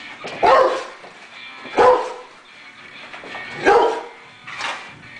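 Rottweiler barking: three loud barks a second or two apart, then a weaker one near the end.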